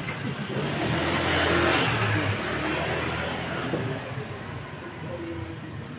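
A passing vehicle: its noise swells to a peak about a second and a half in, then fades away, under faint background chatter.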